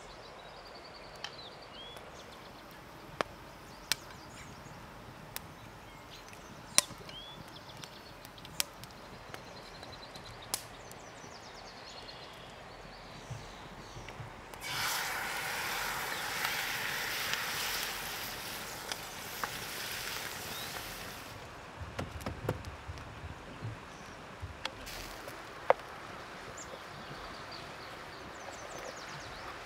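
Cream poured into a hot cast-iron pan of toasted peppercorns, sizzling loudly for about six seconds about halfway through, then dying down. Before and after, a wood fire crackles with sharp, scattered pops, and small birds chirp faintly.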